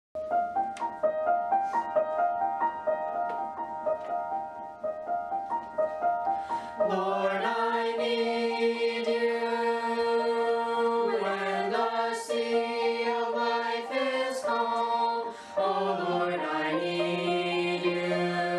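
A family vocal group of mixed men's and women's voices singing a sacred song in harmony. The voices come in about seven seconds in, after a short piano introduction of single struck notes.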